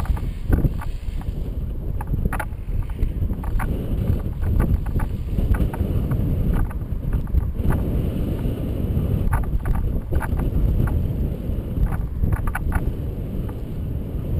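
Airflow buffeting the microphone of a camera trailing behind a paraglider in flight: a steady low rumble, with scattered light clicks throughout.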